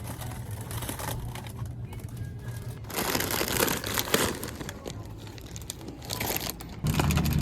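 Background music with a steady low bass line, and two bursts of crinkling noise, one about three seconds in lasting over a second, and a shorter one near six seconds.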